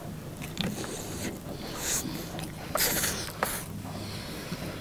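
A person eating: chewing, with several short breaths puffed out through the lips and nose about two to three and a half seconds in.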